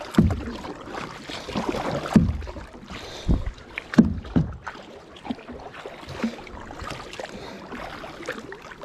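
Kayak paddle strokes in the water: irregular splashes and low knocks a second or two apart over a steady wash of water noise.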